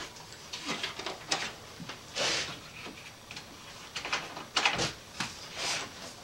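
Aluminium guide rail being shifted and handled on a perforated worktable: a series of light clicks and knocks, with a few short sliding scrapes.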